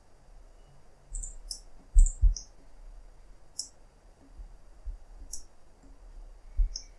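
Computer mouse clicking: several short, separate clicks spaced irregularly, a few with a dull knock underneath.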